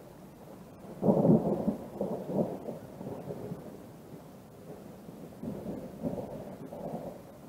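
Thunder rumbling, loudest about a second in, then rolling on in several waves.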